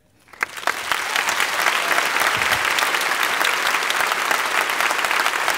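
Audience applauding: many hands clapping, building up over the first second and then holding steady.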